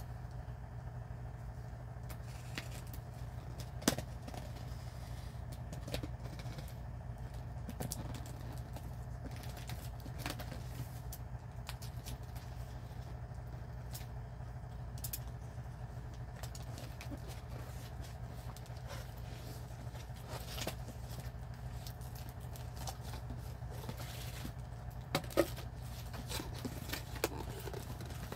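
A cardboard box being cut open and unpacked: scattered scrapes, clicks and rustles of a cutter slitting packing tape and cardboard flaps being handled, with a couple of sharper knocks about four seconds in and near the end. A steady low hum runs underneath.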